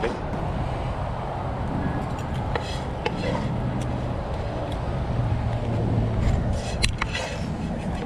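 Wooden spoon stirring and scraping rice in a non-stick frying pan, with a few sharp clicks and scrapes, the loudest near the end, over a steady low rumble of wind on the microphone.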